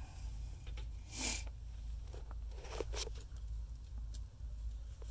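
A few short crunching, rustling noises, twice standing out about a second in and near three seconds, with scattered small clicks over a steady low rumble of a handheld phone being moved. They fit steps and shuffling on loose cardboard and debris on the floor.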